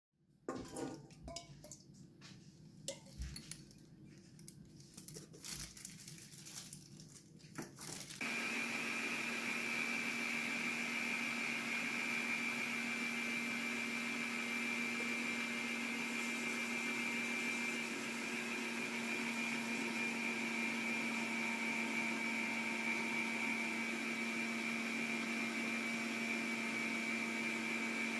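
A few scattered clicks and knocks, then about eight seconds in a stand mixer starts. It runs steadily at one speed with a high, even hum, its whisk beating eggs in a stainless steel bowl.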